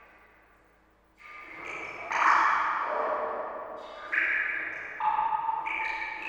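Water drops plinking, one after another, each a short ringing note that fades away. The first second is quiet, then about six drops fall at uneven intervals, some overlapping.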